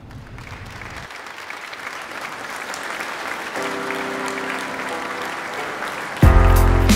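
A crowd applauding, growing steadily louder, with soft held musical notes fading in partway through. About six seconds in, loud music with a deep bass starts.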